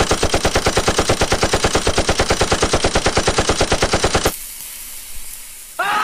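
Sustained automatic rifle fire, a rapid, even stream of about a dozen shots a second that stops about four seconds in, leaving a quieter hiss. Near the end a different loud, wavering, pitched sound begins.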